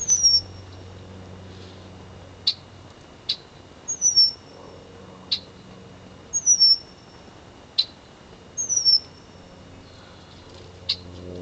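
Red-winged blackbird alarm calling at a red-shouldered hawk near its nest: four high, thin whistles that slide downward, about two to three seconds apart, with five sharp short 'check' notes between them.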